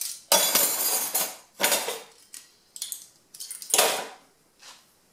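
Metal spoons clattering against each other and a plastic cutlery drawer tray as they are put back into it by hand, in several short bursts.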